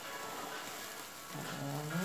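Plastic cling film crinkling as it is pulled off a block of homemade soap. Near the end comes a short pitched sound that dips and then rises in pitch.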